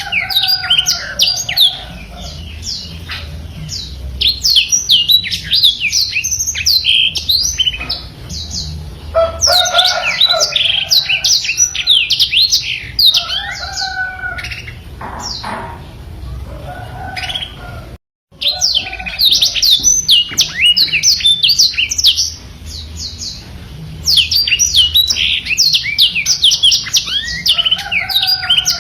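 Black-throated canary (blackthroat) singing vigorously in long phrases of rapid, high chirps and trills, each a few seconds long with short pauses between. The sound drops out for an instant about two-thirds of the way through.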